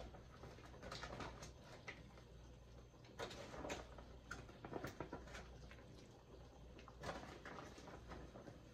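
Faint, irregular clicks and knocks of crab-leg shells being handled and dropped into a pot of simmering gumbo, over a steady low hum.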